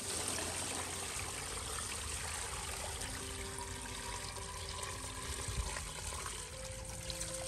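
Water poured in a steady stream from a metal pail into a large aluminium stockpot, splashing onto the bull's legs and hooves inside as the pot fills. The pour starts abruptly.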